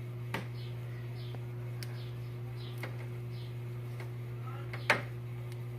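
A hand wire stripper working on the fan's power cord gives a few sharp clicks, the loudest about five seconds in, over a steady low hum. Faint short high chirps repeat in the background.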